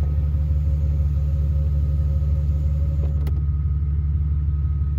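A BMW 760Li's electric rear roller sun blinds run with a thin, steady motor whine that stops with a click about three seconds in. Underneath is the car's steady low idle rumble.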